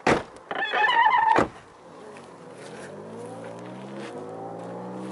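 A loud knock and about a second of clatter, then a vehicle running, its pitch rising slowly and growing louder over the last three seconds.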